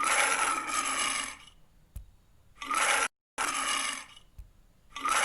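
Recording of a lion roaring, played back through a small speaker so it comes out thin and noisy: a series of rough bursts, each about a second long, with short pauses between.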